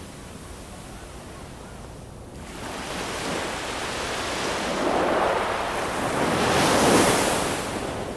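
Ocean waves breaking and washing in: a low hiss that swells from about three seconds in, crests twice and then draws back.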